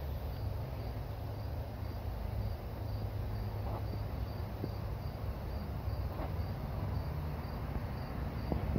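An insect chirping in a steady rhythm, about two short high chirps a second, over a steady low rumble.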